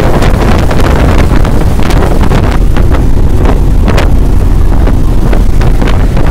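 Heavy wind buffeting on the phone's microphone from air rushing in through an open window of a moving vehicle, over a steady low road rumble, with frequent short crackles from the gusts.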